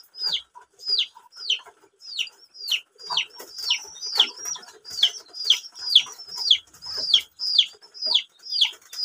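Ducklings peeping loudly, a steady string of short high calls that each fall in pitch, about two a second.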